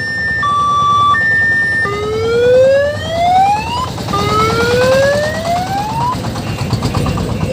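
Loud electronic siren on an odong-odong mini tourist train. It alternates between two tones, high-low, and about two seconds in switches to two rising wails of about two seconds each. A diesel engine runs low underneath.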